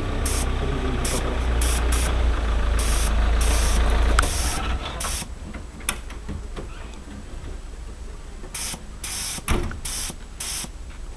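Gravity-feed paint spray gun spraying primer in short hissing bursts, about a dozen trigger pulls with a pause of a few seconds in the middle. A low engine rumble runs underneath and stops about four seconds in.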